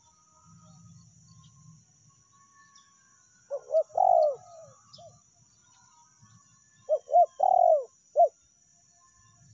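Spotted dove (tekukur) cooing: two phrases a few seconds apart, each a quick run of short coos around a longer drawn-out coo, the second phrase ending with one more short coo.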